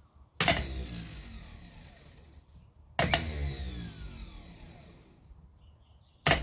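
Datsun 1000 starter motor being bench-tested, its solenoid bridged with a screwdriver: each time it clacks as the pinion throws out, spins up briefly and then whirs down with a falling whine. This happens twice, with a third clack right at the end.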